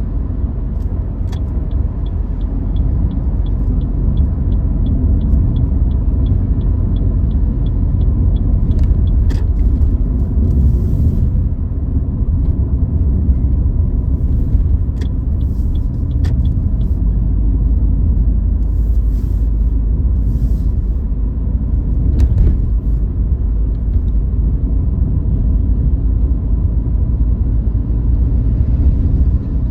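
Car driving, with a steady low road rumble heard from inside the car. An even light ticking of about three to four ticks a second runs through the first eight seconds or so, and a few sharp clicks come later.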